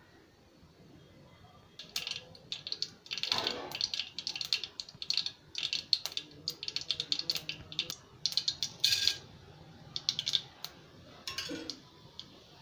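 Mustard seeds spluttering and popping in hot oil in a kadai: rapid bursts of sharp crackles start about two seconds in and die away near the end.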